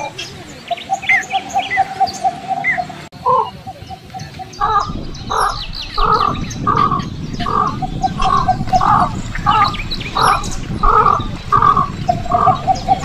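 Bird calls: a steady trilling tone at first, then, from about four seconds in, a run of loud, short, pitched calls repeating about twice a second, with small high chirps from songbirds throughout.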